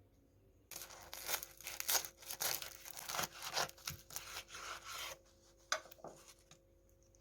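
Rough rubbing and scraping noise made of quick, uneven strokes for about four seconds, followed by a single sharp click.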